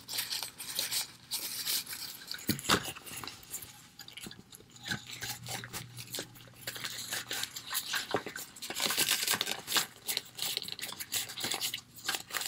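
Rustling and crinkling of a small green doll-sized fabric hood being handled and bunched up by hand, mixed with light clicks and taps of small plastic parts; one sharper click comes about two and a half seconds in, and the rustling is densest near the end.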